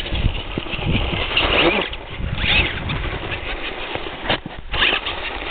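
Tamiya Clod Buster RC monster truck driving through snow: its twin electric motors and gearboxes whirring, rising and falling with the throttle, as the spiked tires churn the snow.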